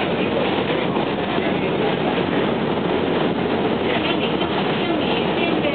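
New York City subway Q train running at speed, heard from inside the car: a steady, dense noise of the wheels and car body on the track, with no let-up.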